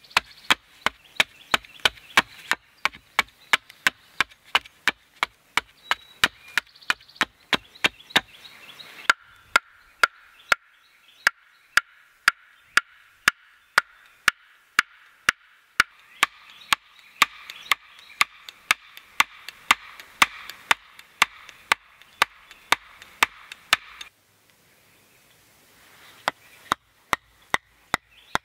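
Back of a hatchet pounding a wooden stake into the ground: sharp wooden knocks at a steady pace of about two a second, with a pause of a couple of seconds near the end before they resume.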